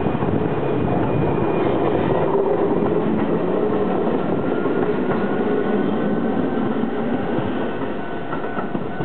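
Keio 6000 series electric commuter train pulling out of the station: steady running noise of wheels on rails and traction motors. A faint whine rises slightly in pitch over the second half as the train gathers speed.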